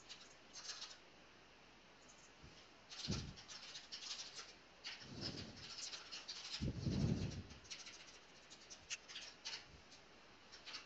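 Computer keyboard typing: irregular runs of soft key clicks, with a few low muffled sounds in between, the loudest about seven seconds in.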